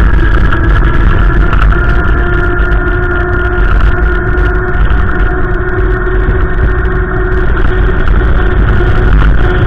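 Strong wind buffeting the microphone with a loud, continuous low rumble, over a steady droning hum.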